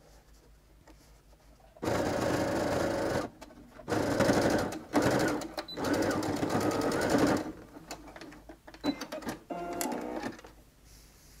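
Domestic electric sewing machine straight-stitching a rolled hem on terry cloth, starting about two seconds in and running in three bursts with short pauses between, then stopping.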